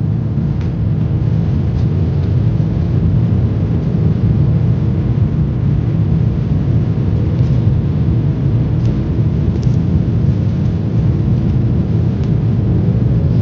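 Boeing 777-300ER jet engines running, a loud steady low rumble heard from inside the cabin, with a few faint rattles.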